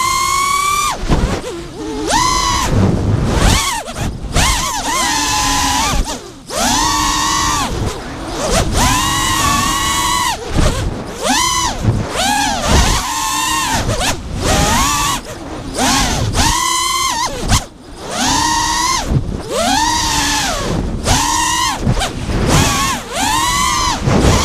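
Brushless motors of a 5-inch FPV freestyle quadcopter (Lumenier RX2206 2350Kv with HQ 5040 tri-blade props) whining, heard from its onboard camera. The pitch rises and falls over and over with throttle punches and drops, and the whine dips out briefly between punches, over wind rush.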